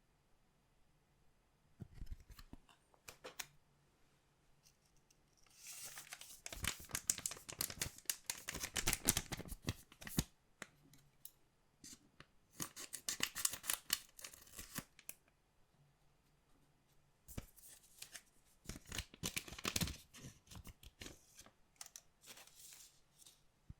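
Collectible card packaging being opened by hand: three stretches of dense, crisp rustling and clicking, a few seconds each with short pauses between, after a few lighter clicks near the start.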